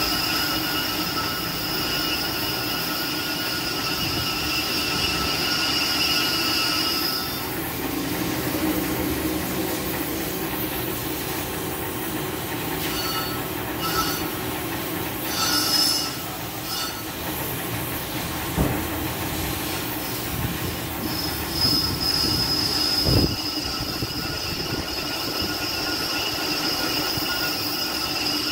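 Lathe cutting bit squealing against a spinning cast-iron Ford Ranger brake rotor as its face is resurfaced, a steady high-pitched squeal over the lathe's running hum. The squeal stops about seven seconds in, returns in short spells, then comes back steadily for the last seven seconds, with a couple of sharp knocks in between.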